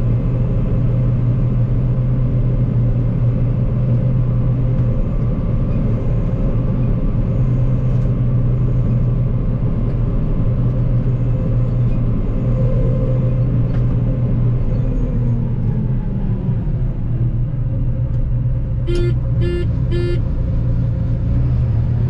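John Deere 9560 STS combine running steadily under harvesting load, heard from inside its cab as a constant low drone. About three-quarters of the way through, three short electronic beeps sound close together from the cab.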